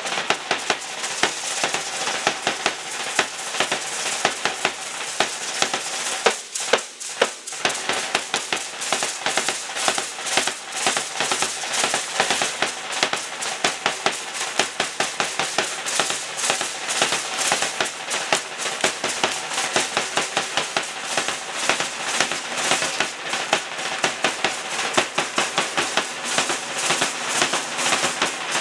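Percussion of a matachines dance troupe: a drum and the dancers' rattles keeping a quick, steady beat of sharp strikes.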